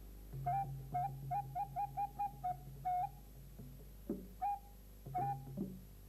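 Music: short piping, flute-like notes. A quick run of about eight notes at one pitch comes in the first three seconds, then a few single notes spaced apart, over a low held tone.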